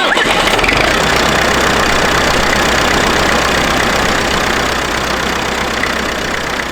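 IMT 560 tractor's diesel engine starting up, catching within the first second and then running steadily.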